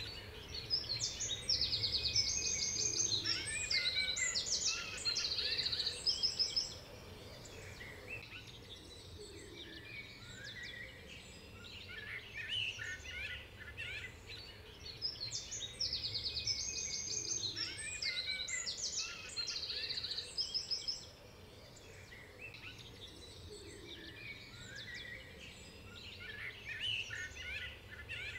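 Small songbirds chirping and trilling in bouts of several seconds with quieter gaps between, over a faint low background hum.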